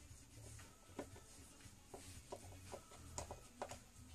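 Faint clicks and scrapes of a small screwdriver working the tiny screws out of a Samsung Galaxy Note II's frame, about half a dozen light ticks spread through, over a low steady hum.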